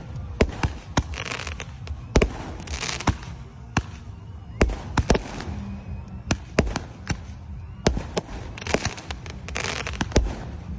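Eight-shot roman-candle-type firework tubes firing: a quick, irregular string of sharp bangs as the shots launch and burst, with several short spells of crackling between them.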